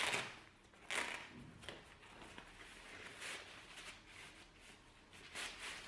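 Rustling of nylon softbox fabric and its white diffuser cloth as the folded softbox is pulled out and handled, in about four short swells.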